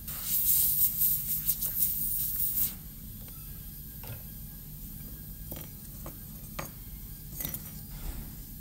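Dental air syringe blowing short, fluttering bursts of air for about two and a half seconds, clearing plastic cutting dust off a typodont molar's cavity preparation. It is followed by a few light clicks of an instrument against the plastic tooth.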